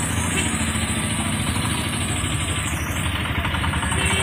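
Street traffic: vehicle engines running steadily.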